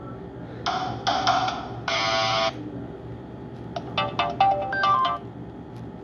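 Nokia 130 mobile phone's loudspeaker playing a polyphonic Nokia 6650 Fold ringtone. It comes in short phrases of electronic notes: a few notes, a held chord, then a quick run of short notes, with pauses between the phrases.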